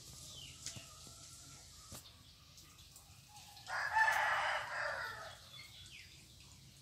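A rooster crowing once, a single call of about a second and a half starting a little past halfway.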